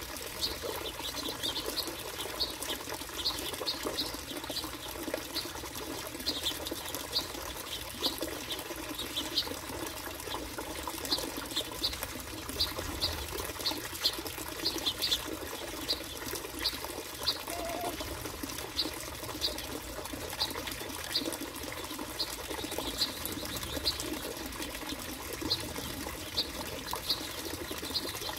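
Finches chirping, a steady run of short high chirps about one or two a second, over a constant background hiss.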